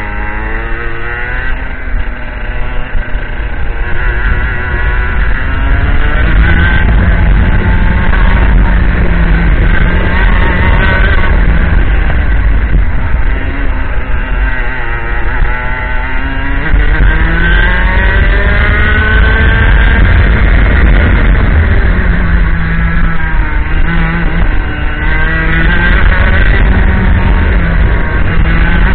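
IAME X30 125cc two-stroke kart engine at racing speed, its pitch climbing for several seconds along each straight and dropping sharply as the driver lifts for each corner. This happens repeatedly, over a steady low rumble.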